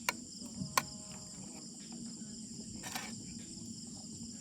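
A steady chorus of crickets chirping, high-pitched, with a few light clicks: one at the start, one just under a second in, and one about three seconds in.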